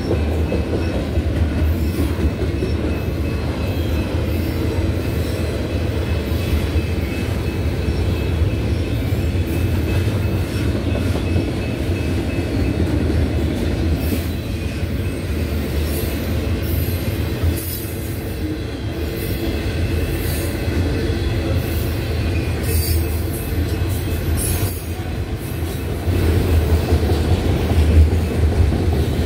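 Autorack freight cars rolling past: a steady rumble of steel wheels on rail, with a thin wheel squeal and scattered clanks. It gets louder about three seconds before the end.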